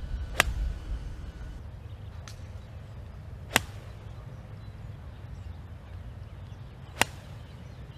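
Golf iron striking balls off the turf: three sharp, crisp cracks about three and a half seconds apart, with a fainter click between the first two, over a low steady background rumble.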